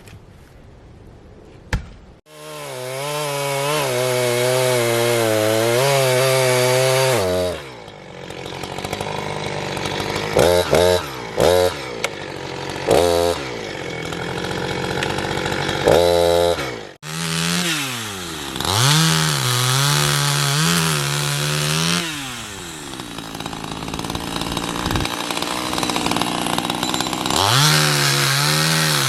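Two-stroke chainsaw that comes on suddenly about two seconds in and runs at high revs. It then revs in short bursts, its pitch dipping and recovering several times as it cuts firewood.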